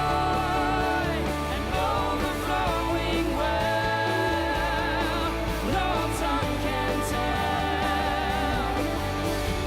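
Music with singing over instrumental accompaniment: long held notes, some wavering with vibrato, over a steady sustained bass.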